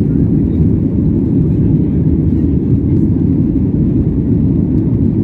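Steady, loud low rumble inside the cabin of a Boeing 737-8 on departure, the noise of its CFM LEAP-1B jet engines and the airflow along the fuselage.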